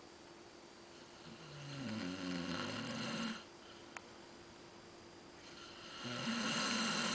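A man snoring in his sleep: two long snores, each lasting about two seconds, the first starting a little over a second in and the second near the end, with a faint click between them.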